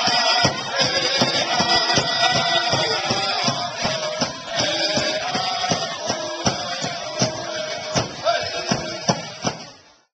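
Powwow drum group: singers chanting together over a steady beat on a large drum, fading out near the end.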